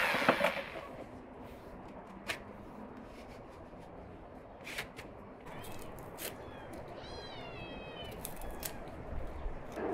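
A cat meowing twice: a short call about five and a half seconds in, then a longer wavering one about a second later. A few faint clicks and handling sounds come through the quiet background.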